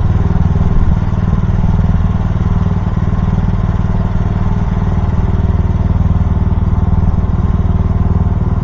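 VC13C mini excavator's engine running steadily with a low, even hum.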